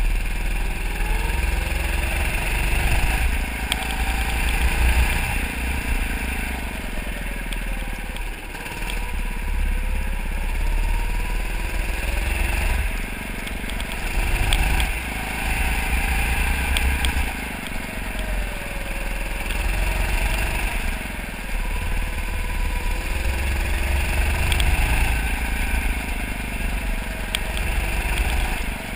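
Go-kart's small petrol engine heard from on board, its pitch rising and falling again and again as the kart speeds up and eases off through the laps, over a heavy low rumble.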